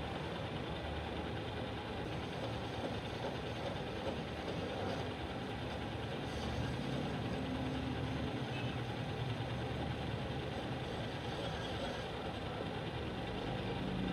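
Machinery running steadily, a continuous mechanical drone with a low hum.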